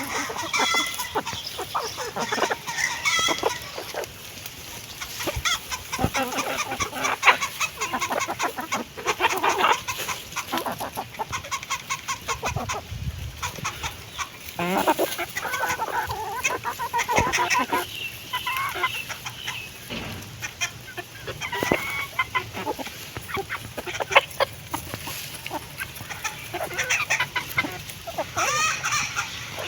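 Hens clucking in short repeated calls while pecking at food, with many sharp ticks of beaks striking.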